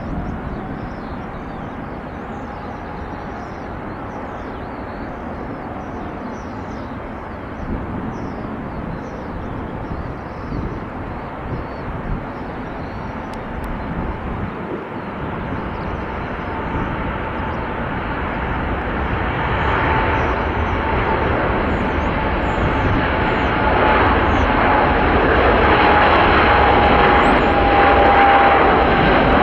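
Airplane engines running with a steady rush, growing louder over the second half as a steady whine comes up.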